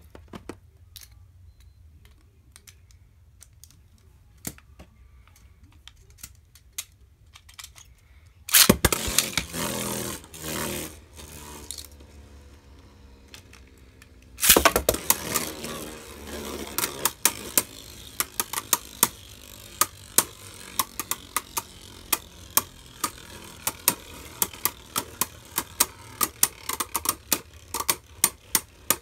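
Small plastic clicks as the Beyblade tops are handled. Then two Beyblade Burst tops are launched into a plastic stadium with a loud zip from the launcher, one about eight seconds in and the other about six seconds later. The two tops then spin together with rapid, repeated clacks as they hit each other.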